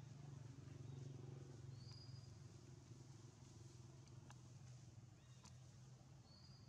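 Near silence: a faint steady low hum, with two faint clicks in the middle and a short, high, thin chirp near the end.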